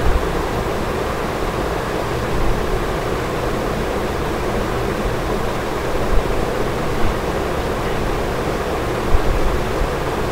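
Steady background hiss and low hum picked up by an open microphone, with a few soft low bumps about six and nine seconds in.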